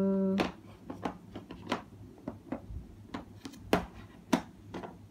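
Light clicks and taps of plastic Play-Doh tools and moulds being handled as dough is pressed and picked off, irregular, with two sharper knocks a little past the middle. A steady held tone cuts off about half a second in.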